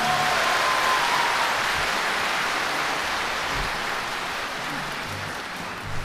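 Concert audience applauding after an orchestral song ends, the clapping slowly dying down.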